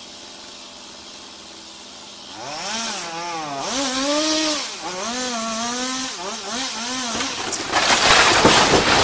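A chainsaw revs up and down in repeated rises and falls as it cuts into a wooden barn roof. Near the end the roof caves in with a loud crashing rumble of breaking timber and falling debris.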